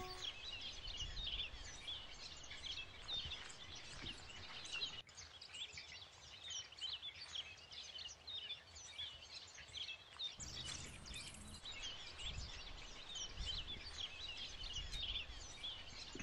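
Many birds chirping at once, short rising and falling calls overlapping, over faint low outdoor background noise.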